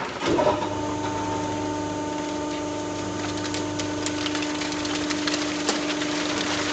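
Vertical baler's hydraulic power unit running with a steady machine hum. The hum starts about half a second in, with faint scattered clicks over it.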